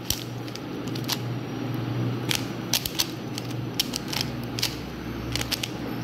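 Plastic 3x3 speed cube being scrambled by hand, its layers turned quickly: irregular sharp clicks and clacks, several a second, over a low steady hum.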